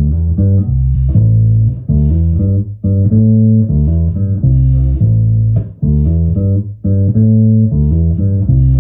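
Birdsong Hy5 electric bass strung with D'Addario flatwound chrome strings, played through an amp: a repeating riff of plucked low notes in short phrases with brief breaks about every second.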